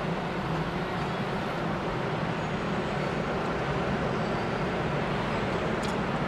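Steady city street traffic noise, a continuous mix of vehicle engines and tyres, with a brief click near the end.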